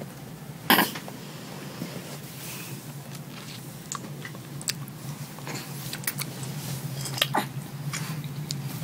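A baby sucking milk from a feeding bottle, with scattered wet smacking clicks from the nipple and one loud sharp click about a second in. A steady low hum runs underneath.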